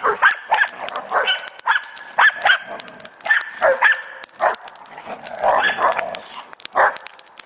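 Dogs (a giant schnauzer, a Jack Russell terrier and a pit bull–boxer mix) barking and yipping in rough play, about a dozen short, sharp barks in quick succession.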